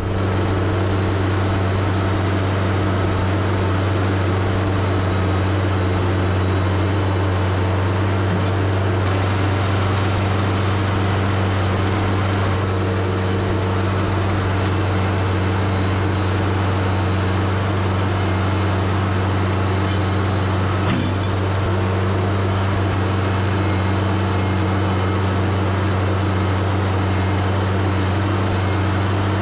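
TYM 474 compact tractor's diesel engine running steadily at a constant speed while the front-loader bucket works against stumps and frozen ground. A couple of faint clicks come about twenty seconds in.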